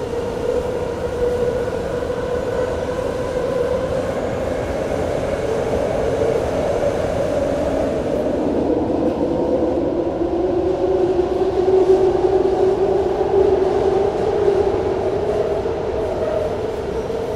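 Interior of a BART rapid-transit train car running on the rails: a steady rumble with a whining tone that drops in pitch about halfway through.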